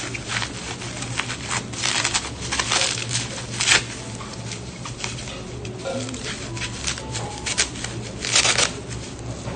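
Plastic wrapping crinkling and rustling in irregular bursts as hands pull it open and take out small packets, loudest about four seconds in and again near the end, over a steady low hum.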